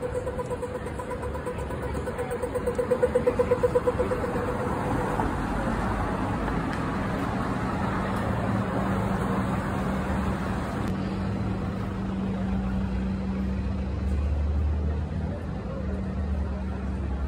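A pedestrian crossing signal's rapid pulsing beep, growing louder and stopping about five seconds in. After it comes city traffic: cars passing, with a steady engine hum and a deeper rumble near the end.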